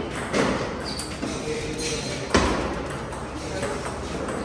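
Table tennis ball being struck back and forth in a rally, heard as a few sharp clicks of ball on paddle and table, the loudest about two and a half seconds in.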